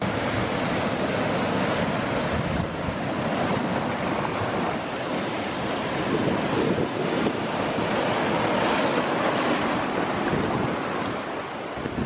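Sea surf washing and foaming over shoreline rocks, a steady rushing of broken water.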